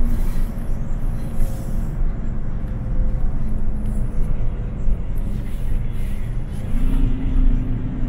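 City bus under way, heard from inside the cabin: steady engine drone and road rumble, with the engine note rising slightly about seven seconds in.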